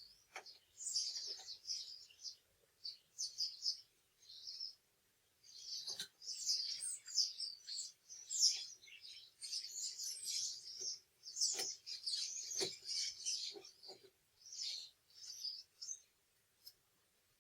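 Small bird chirping and twittering in quick high-pitched bursts, with a brief pause partway through and a few light clicks near the middle.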